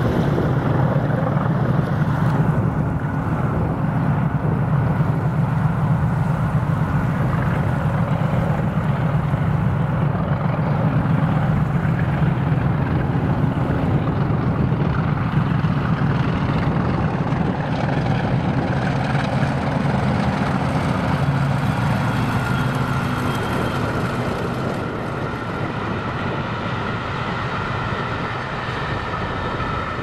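Two Class 50 diesel locomotives running under power as they pass, their English Electric 16-cylinder engines giving a steady deep drone. A higher whine, the sound behind the class's nickname 'Hoovers', rises over the drone in the second half as the overall sound eases a little.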